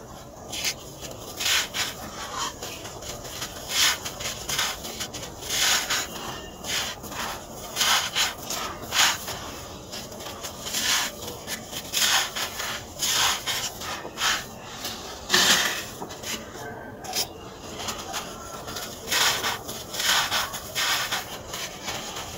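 Hands crumbling and crushing moulded chunks of dry sand, a gritty crunching and grainy rustle that comes in irregular bursts about once a second.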